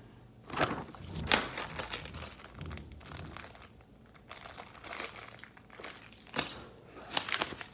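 Packaging crinkling as it is handled, with several sharp clicks or knocks, the loudest about half a second in, just over a second in, and near the end.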